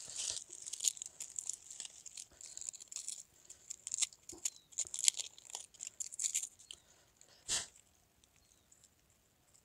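Charred shell of a fire-roasted egg being peeled and crumbled off by hand, with dry leaf wrapping crinkling: scattered crackles and small tearing sounds, one louder crackle a little past seven seconds in, then it goes quiet.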